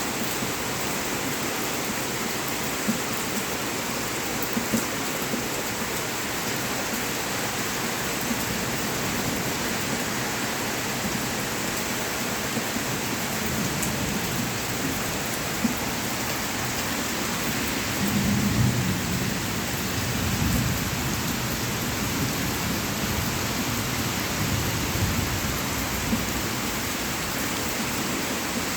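Heavy rain pouring steadily, with scattered sharp drop ticks and a low rumble swelling up about two-thirds of the way through.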